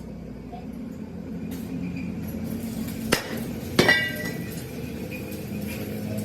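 Hammer striking a steel tractor wheel rim: two sharp metallic clanks about three and almost four seconds in, the second ringing on. A steady low hum runs underneath.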